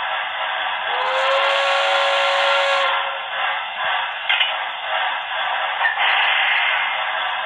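Sound decoder of an HO-scale Broadway Limited Paragon PRR T1 steam locomotive model, played through its onboard speaker: one whistle blast of several notes at once, about two seconds long, starting about a second in, over a steady steam hiss.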